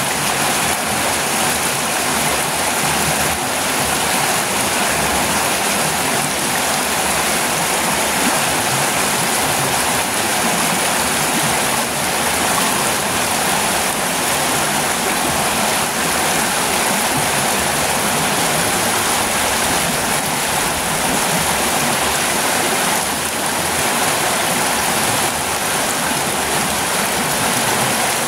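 Small waterfall: river water pouring over a rock ledge and churning white into a pool below, a steady rushing noise.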